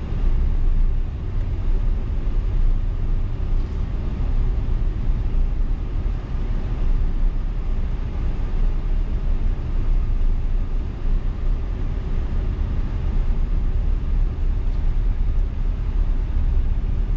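Steady low rumble of road and engine noise heard from inside a Ram pickup truck's cabin while it drives along a paved road.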